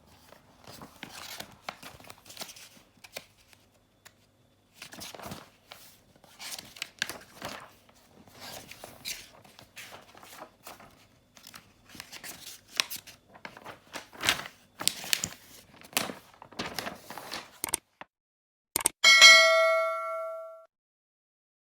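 Paper pages of a book being flicked and turned, rustling in quick irregular flurries. About 19 s in, a single bright bell-like ding rings out and fades over a second or so.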